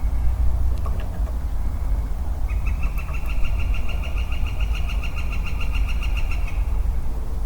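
A male Western Chorus Frog calls once, a rapid, even pulsed trill that starts about two and a half seconds in and lasts about four seconds, over a steady low rumble.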